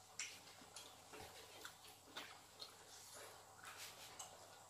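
Near silence with a few faint, scattered clicks and smacks from people eating tteokbokki at the table.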